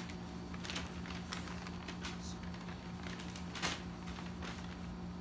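Faint rustles and small clicks of a measuring tape being handled and laid across a patient's abdomen, with one sharper click about three and a half seconds in, over a steady low hum.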